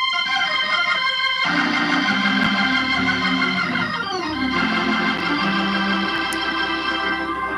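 Organ played in sustained full chords that change every second or so, with a quick downward run of notes about four seconds in.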